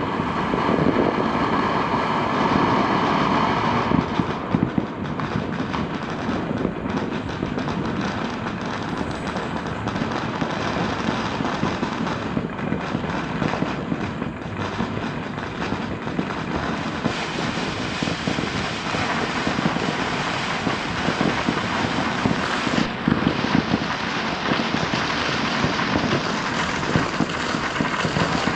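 Fireworks and firecrackers going off in a dense, continuous crackle of rapid pops, with no let-up. For about the first four seconds a steady pitched whine sounds over the crackle.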